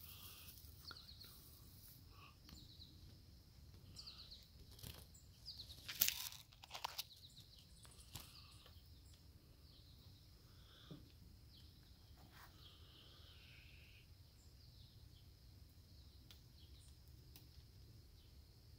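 Faint outdoor ambience with a few short rustles and crackles, the loudest about six seconds in, and faint bird chirps in the background.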